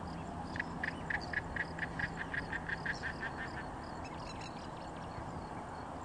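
An animal calling in a rapid, even run of about fourteen short notes, roughly four to five a second, which stops after about three seconds. A steady low hum lies beneath.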